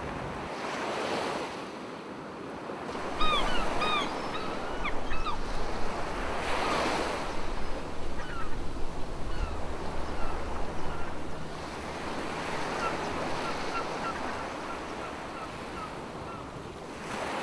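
Ocean surf breaking on a beach in slow swells, with wind buffeting the microphone. Bird calls come in a short flurry about three seconds in, and a run of quick small chirps follows later on.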